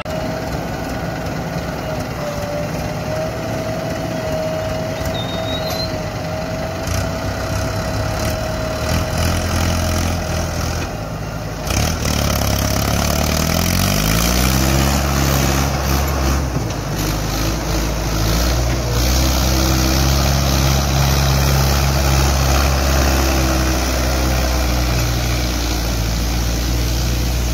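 Diesel engines running steadily at a loading site. About twelve seconds in, the Mahindra Arjun 555 tractor's engine revs up, rising in pitch, as it pulls away, then runs louder and steady under the load of a full trolley of soil.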